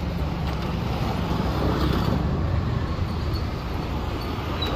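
Road traffic noise from passing vehicles, as a steady low rumble.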